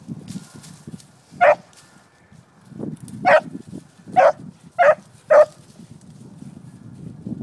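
A dog barking five times in short, sharp barks, the first about a second and a half in and the last four closer together.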